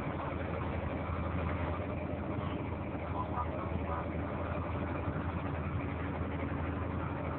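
A boat's engine running steadily with a low, even hum.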